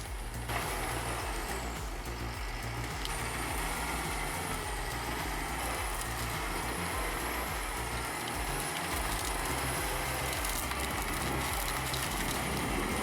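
Timberjack 1710D forwarder's diesel engine running steadily, with a high whine that wavers up and down in pitch.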